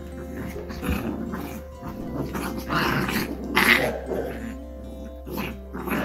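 Bernedoodle puppies play-fighting, growling, with a couple of short, sharp, higher cries about three seconds in. Background music runs underneath.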